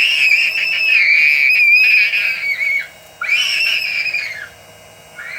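A child screaming at a high pitch: one long scream of about three seconds, a second shorter one, and a third starting near the end.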